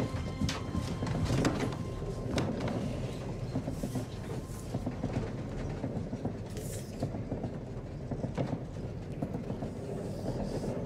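Railway carriage in motion, heard from inside: a steady low rumble with scattered clicks and knocks from the running gear.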